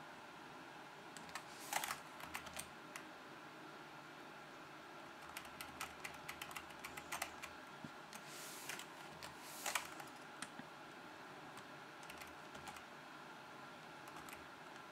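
Computer keyboard keys pressed in short irregular runs of sharp clicks, busiest from about five to ten seconds in, with the loudest clacks about two seconds in and near ten seconds.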